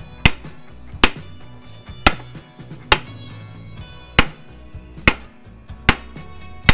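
Sledgehammer blows on a rusted steel brake drum of an old truck axle, about one strike a second, each with a short metallic ring, knocking the seized drum loose.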